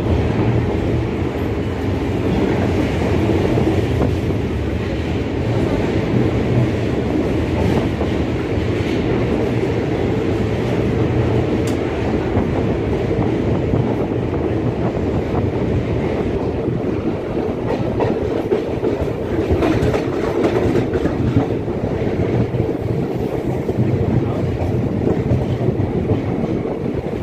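Passenger train coach running along the rails, heard from inside the coach through an open door or window: a steady rumble of wheels on track.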